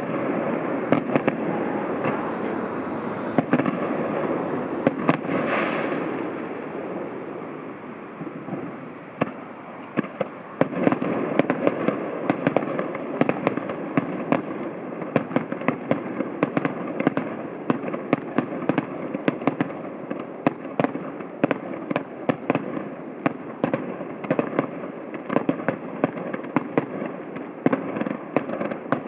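Fireworks display heard from about a kilometre away: a steady run of bangs and crackles. The bangs thin out and fade about eight to ten seconds in, then come back as rapid, dense volleys.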